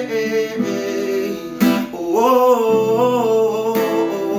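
Strummed acoustic guitar under a solo voice singing a worship song; about two seconds in, the voice holds a long, wavering note.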